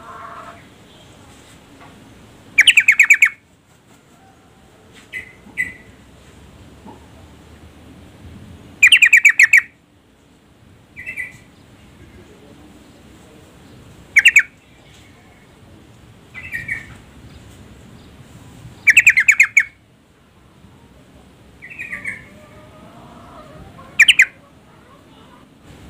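Female yellow-vented bulbul (trucukan) calling: five loud, rapid chattering bursts, each under a second, about every five seconds, with softer single chirps in between. This is a female's call to males.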